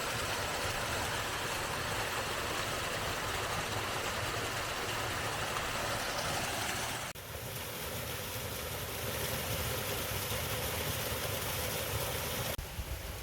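Waterfall: a steady rush of falling water, its tone changing abruptly twice, about halfway through and near the end.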